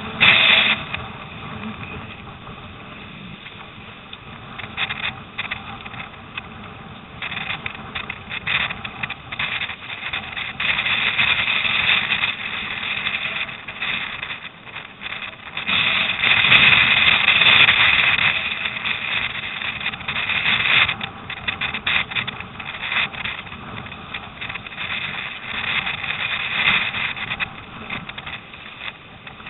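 Choppy, wind-driven lake water splashing and rushing along a surfski's hull as it runs downwind through waves, with wind buffeting the microphone. The noise comes in surges, the loudest a little after the middle, as waves break over the bow.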